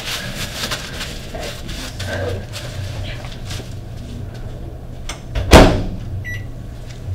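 A ceramic bowl being lifted out of a microwave with light clinks and rustling, then one loud thump about five and a half seconds in, followed by a short high electronic beep. A steady low hum runs underneath.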